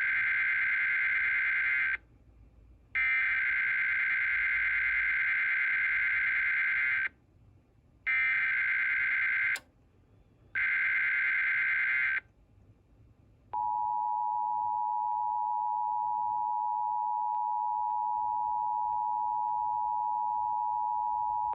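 Emergency Alert System SAME header: a series of harsh, buzzing digital data bursts with about one-second pauses between them. About halfway through, the bursts give way to the steady two-tone EAS attention signal (853 and 960 Hz), which holds at one pitch for about eight seconds, announcing an alert about to be read.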